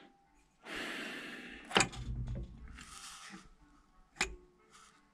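A man's long, heavy sigh through the nose, followed by fainter breathing. Two sharp clicks come about two and four seconds in as engine parts are handled.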